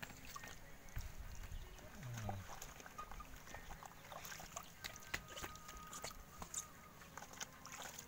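Soft sloshing, trickling and dripping of soapy water in a plastic basin as hands rub and dip a pigeon, with scattered small splashes and drips.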